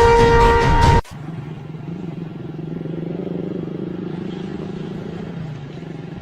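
Background music cuts off abruptly about a second in, giving way to a steady low engine hum.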